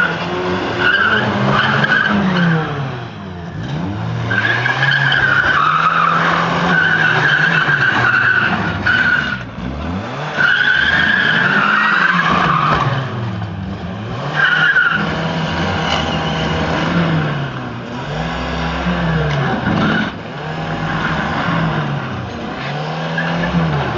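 Car engines revving up and down over and over, with long high-pitched tyre squeals as wrecked cars spin on tarmac.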